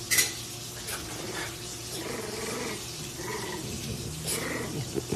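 Dogs growling as a puppy and an adult French bulldog play-fight, with a short sharp noise just after the start.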